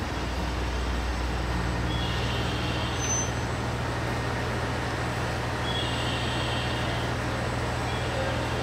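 Diesel engine of an ET122 railcar running steadily at the platform, a constant low hum. A short high tone comes and goes about every three to four seconds.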